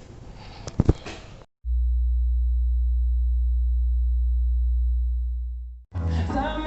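A steady, very low-pitched pure sine test tone for a bass test, held for about four seconds and fading out at the end. Before it there is faint background noise with a click about a second in, and music starts just at the end.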